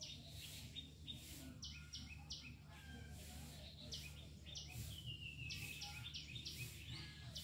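Small birds chirping in many short, high notes, with a few falling slurred calls, over a steady low hum.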